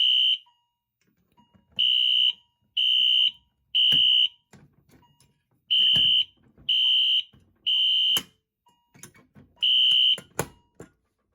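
Electronic fire alarm horn sounding a temporal-3 evacuation pattern: three half-second beeps at a steady high pitch, a pause, then three more. The horn stops after the last beep about ten seconds in. Sharp knocks and clicks of the pull station being handled and reset come between the beeps.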